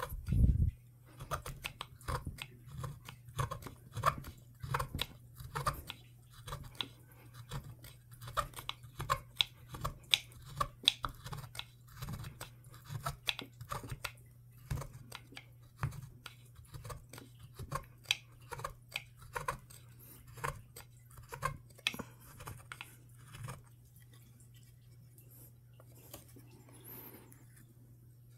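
Curved half-round gouge paring wood by hand out of a wooden pistol stock's trigger-guard inlet: a run of short scraping cuts, one or two a second, which stop a few seconds before the end. A steady low hum runs underneath.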